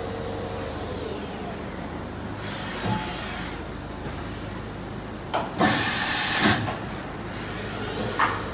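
Doosan Mynx 6500 vertical machining center moving its spindle head up and down on the Z axis: a steady hum with a tone that stops about a second in, then three bursts of hissing, sliding machine noise, the loudest about six seconds in starting with a couple of sharp clicks.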